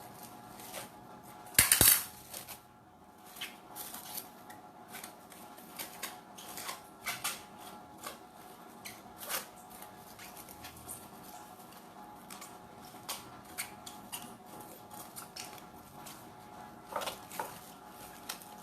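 Kitchen utensils and dishes clinking and tapping as they are handled, in scattered short knocks, with one loud clatter about two seconds in.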